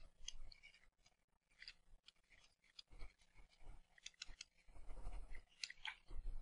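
Stylus scratching across a pen tablet in quick short strokes as words are handwritten, faint, with a few soft knocks against the tablet.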